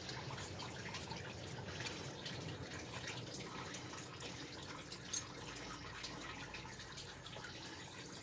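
Quiet background hiss with a few light clicks and taps, the sound of small engine parts and tools being handled.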